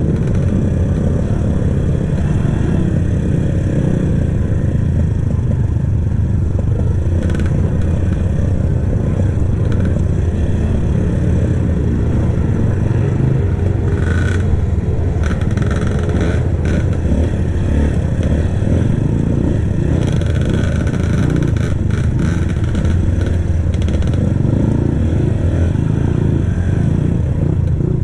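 Kawasaki KLX trail bike's single-cylinder four-stroke engine running through its stock exhaust while ridden off-road. A few sharp clatters and knocks come through over rough ground, the heaviest about halfway through.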